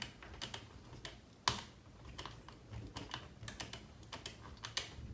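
Small irregular clicks and ticks of a nut driver turning a wheel nut onto the hex hub of an RC truck wheel, with one sharper click about one and a half seconds in.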